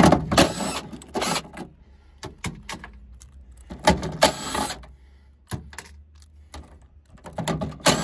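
Impact gun with a 10 mm socket spinning out the trunk latch's bolts in short runs of about a second each, with light clicks in between.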